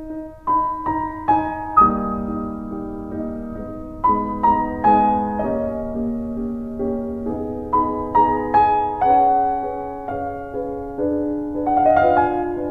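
Gentle piano music: a slow melody over sustained chords, new notes struck about every half second.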